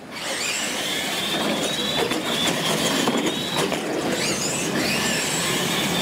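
Two electric R/C monster trucks launching and racing flat out. Their motors and gearboxes start suddenly with a high whine that rises at the launch and then holds, with rattling and clatter from the trucks throughout.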